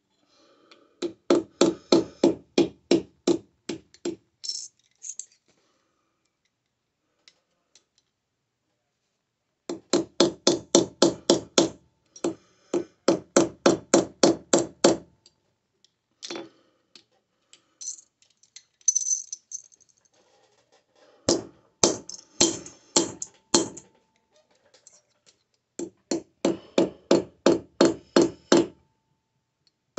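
Hand hammer forging a sterling silver bar, struck in quick runs of about four blows a second with short pauses between runs.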